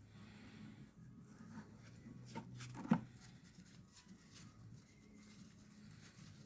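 Faint rubbing and scraping on plastic as sticky sticker residue is worked off, with scattered light taps and one sharper tap about three seconds in, over a low steady hum.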